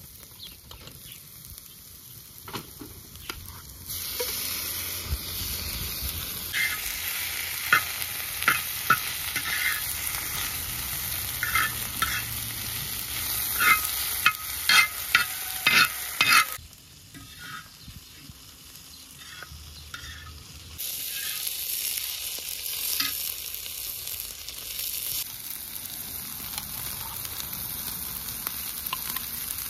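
Veal chunks and chopped onions sizzling in oil on a wide flat iron pan over a fire. A metal slotted spatula scrapes and taps across the pan in a run of sharp strokes. The sizzle grows louder about four seconds in, drops away about two-thirds of the way through, and comes back a few seconds later.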